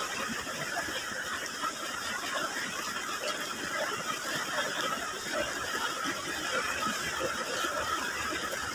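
Close-up eating sounds of chicken feet being picked at and chewed, with small wet clicks and smacks, over the steady rush of river water.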